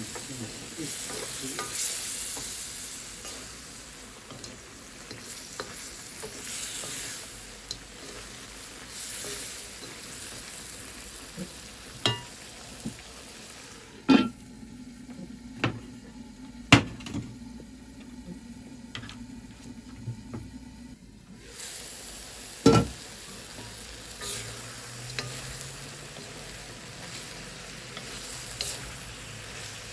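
Chicken adobo frying and sizzling in a pan as it is stirred, with a few sharp knocks of a utensil against the pan around the middle.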